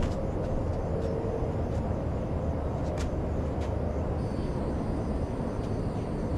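Steady low outdoor rumble with a few faint clicks; a thin, high, steady tone joins about four seconds in.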